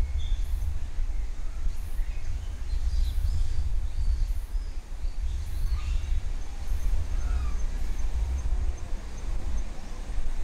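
A steady low outdoor rumble, with faint, scattered high chirps and calls over it.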